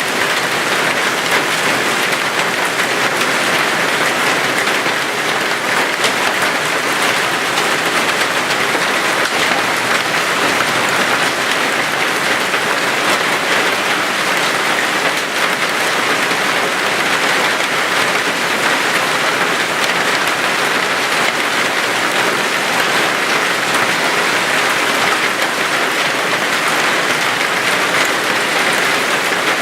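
Heavy rain from a supercell thunderstorm, a dense, steady downpour that holds at the same level throughout.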